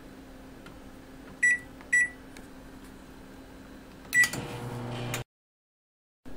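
GE turntable microwave oven's keypad beeping as buttons are pressed: two short beeps, then a third about two seconds later. The oven then starts running with a low hum that cuts off suddenly after about a second.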